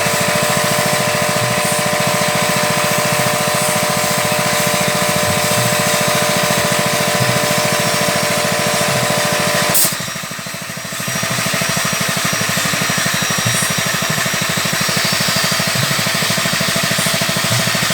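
Floating fish-feed pellet extruder machine running steadily with a continuous mechanical hum and whine. There is a brief dip in the noise about ten seconds in.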